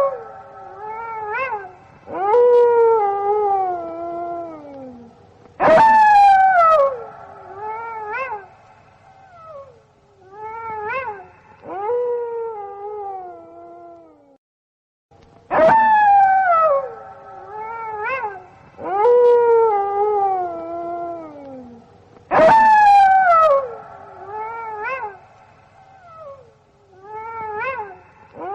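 Gray wolves howling: a series of short howls that start high and slide down in pitch, with at least two voices overlapping. The same run of howls repeats about halfway through, as a loop.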